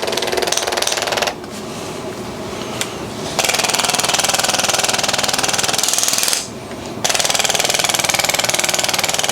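Handheld percussion massage gun hammering rapidly on the knee for soft tissue work. It drops quieter for about two seconds starting a second in, and again briefly after six seconds.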